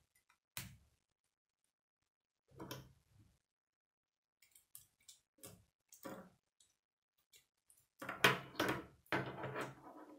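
K'nex plastic rods and connectors clicking and snapping together as they are handled, in scattered separate clicks, with a denser run of plastic clatter near the end.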